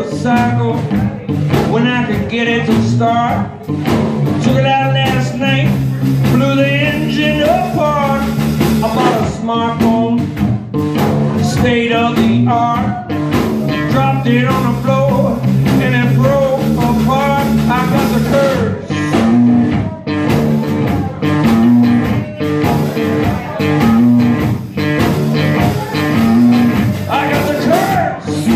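Three-piece band playing live blues rock: electric guitar over electric bass and a drum kit.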